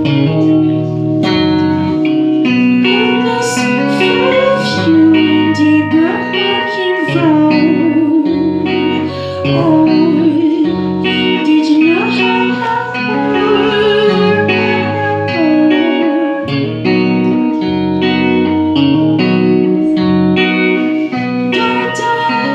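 Guitar music: plucked and sustained notes over changing bass chords, with a wavering vibrato melody line through the middle.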